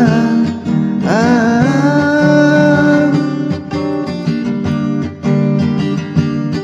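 Acoustic guitar strummed with a voice singing long, wordless 'ahh' notes that slide up into pitch; from about three seconds in the guitar is strummed alone.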